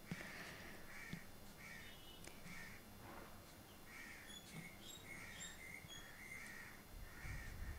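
Crows cawing faintly, a run of short caws about two a second that pauses and starts again, with a few brief higher bird chirps among them.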